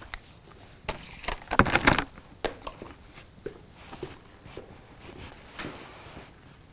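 Footsteps on a hard floor, with a quick cluster of sharp knocks and clatter about one to two seconds in.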